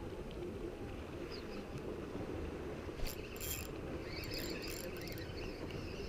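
Spinning reel being cranked, a fine mechanical ticking and rasping that comes in about halfway through, over a steady low background rumble.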